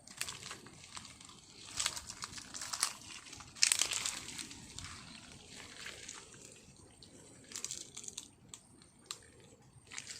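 Irregular crackling and rustling, like dry leaves and twigs being crunched and brushed, in scattered bursts with the loudest about four seconds in.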